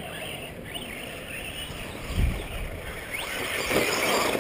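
Radio-controlled short-course trucks running on a dirt track: motor and tyre noise, with a low thump about two seconds in and a rising whine a second later as a truck speeds up.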